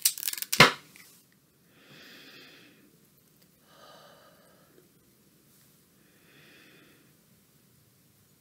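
Plastic wrapping on a clamshell pack of soy wax melts crinkling and tearing, with a sharp snap about half a second in. Then three soft sniffs, a couple of seconds apart, as the wax melts are smelled.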